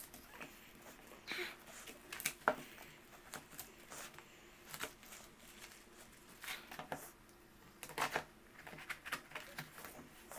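Scissors snipping through a plastic courier mailer and packing tape, with the plastic crinkling as it is pulled off a cardboard box. The snips and rustles come in short, irregular bursts.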